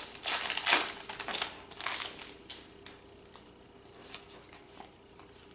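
Bowman 48 basketball trading cards being flipped through by hand: a quick run of papery slides and snaps in the first two seconds or so, then a few light clicks.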